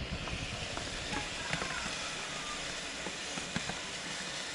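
A tomato mixture sizzling in a large metal pot on the stove: a steady hiss with scattered small pops and ticks.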